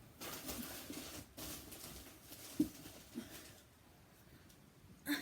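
Handling sounds: about a second of rustling near the start, then two soft knocks, then quiet.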